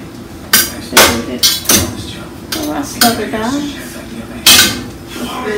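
Kitchen tongs clanking against the side of a stainless steel stockpot while spaghetti is stirred, about six sharp metal knocks at uneven intervals.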